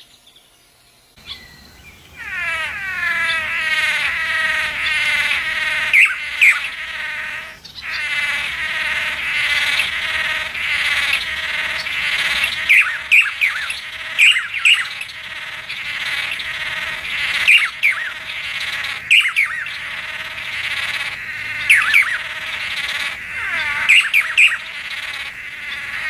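A group of male Chiroxiphia manakins calling in their cooperative display: a fast, overlapping run of nasal, downward-sliding calls starting about a second in, with several short, sharp, louder notes cutting through.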